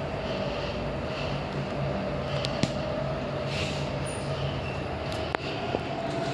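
Otis passenger lift car travelling upward: a steady hum with a faint steady whine, and a few short clicks and rattles.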